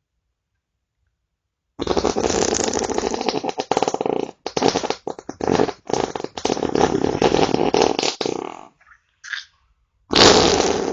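Fart sounds: a long rasping fart starting about two seconds in, then a run of shorter farts with brief gaps between them, a short faint one a little after nine seconds, and another loud fart near the end that trails off.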